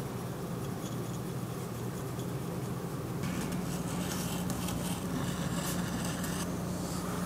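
Wooden edge slicker rubbed back and forth along the cut edge of a leather watch strap, burnishing it: a scratchy rubbing that starts a little before halfway and stops shortly before the end. A steady low hum runs underneath throughout.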